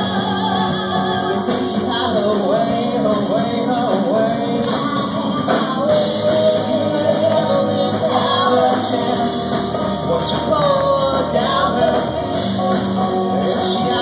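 Live rock band playing a song, with electric guitar, bass guitar and a drum kit, and a vocalist singing over them.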